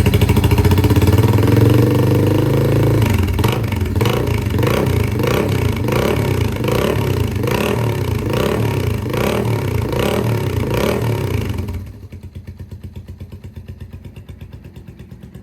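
Yamaha TW225's single-cylinder engine running through an aftermarket silencer, the exhaust note swelling and falling about twice a second for several seconds. Near the end it suddenly drops much quieter and duller but keeps running.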